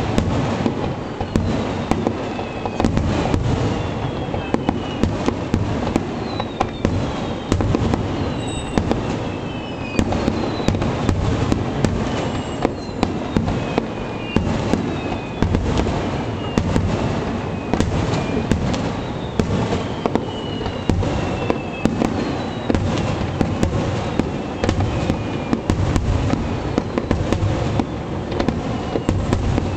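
Aerial fireworks shells bursting in rapid succession: many sharp cracks over a continuous low rumble, with repeated short falling whistles.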